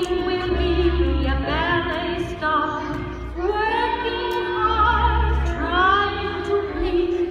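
Song with a woman singing a melody over instrumental backing and a bass line, played over the theatre's sound system.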